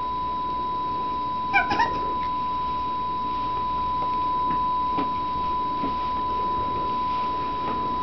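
A steady high-pitched tone that runs throughout. About one and a half seconds in comes a short squeaky, meow-like call.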